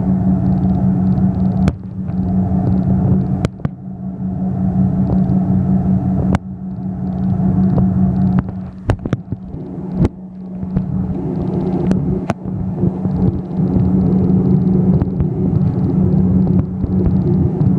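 Cabin noise of an airliner taxiing: a steady low engine hum and rumble, broken by occasional sharp knocks.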